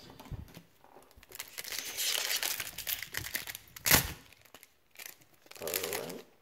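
Plastic foil wrapper of a Pokémon card booster pack crinkling as it is handled, then torn open with a sharp rip just before four seconds in.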